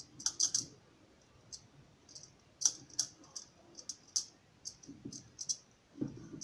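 Irregular sharp clicks of a screwdriver working the small cable-clamp screws of a plastic plug as they are tightened, with duller handling knocks of the plug near the end.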